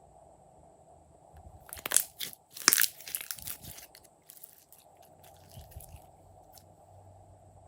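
Slime being squeezed and pressed by hand. A cluster of sharp crunchy pops and crackles comes about two seconds in and lasts a couple of seconds, then fades to softer squishing.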